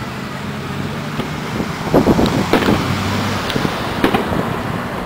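Fireworks going off in a few sharp bangs, a cluster about two seconds in and another near four seconds, over the steady hum of a motor vehicle's engine running close by.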